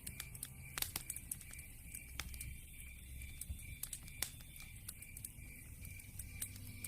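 Wood fire in a fireplace crackling, with scattered sharp pops; the loudest come about a second in and again about four seconds in.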